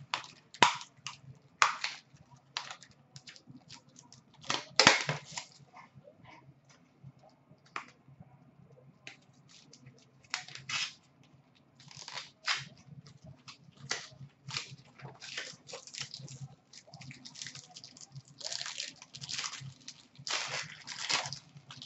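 Hands handling trading cards and plastic card holders: short rustles, clicks and scrapes in irregular bursts, with a quieter stretch about a third of the way in.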